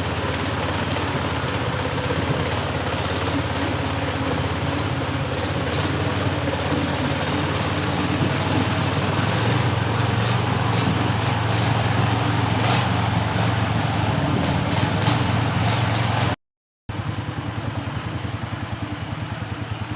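A boat's engine running steadily under way, a continuous low drone with a broad rushing hiss. It cuts out for a moment about sixteen seconds in, then carries on.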